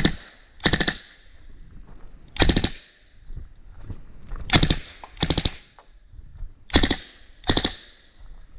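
Suppressed submachine gun firing about six short bursts of rapid shots, each burst a fraction of a second long, with pauses of half a second to two seconds between them.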